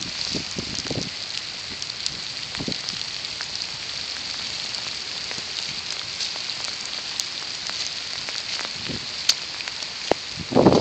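Steady hiss of water, like rain pattering on surfaces, with scattered small taps and splashes. A louder low rumble starts right at the end.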